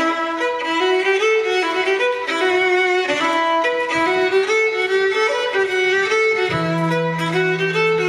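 Irish dance tune with a quick fiddle melody, starting abruptly; a low held bass note joins about six and a half seconds in.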